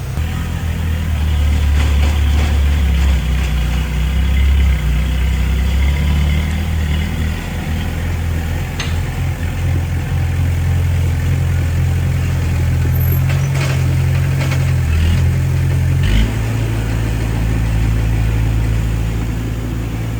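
Diesel engine of heavy earthmoving equipment running under changing load, its low note shifting in steps a few times, with a few short knocks.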